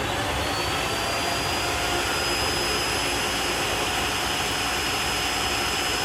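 Tineco iFloor 3 wet/dry vacuum running its self-cleaning cycle in its stand: a steady motor whine over a constant rush of air.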